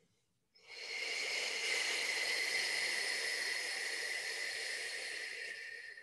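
A person's long, slow exhale on the out-breath of a yoga breathing practice, heard as a steady breathy hiss. It starts about half a second in, lasts about five seconds, and fades out at the end.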